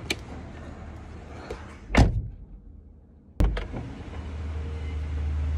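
Car door shut with a loud slam about two seconds in, after which the cabin is muffled and quiet. A sharp clunk about three and a half seconds in lets the outside noise back in, and a steady low hum starts soon after.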